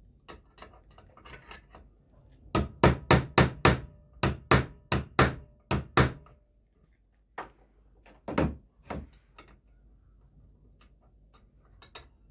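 A hammer striking the steel wrench, a quick run of about a dozen blows at roughly three a second with a slight metallic ring, then a few single knocks spaced apart.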